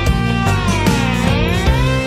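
Background music led by guitar over a steady beat. The melody slides down and back up in pitch about a second in.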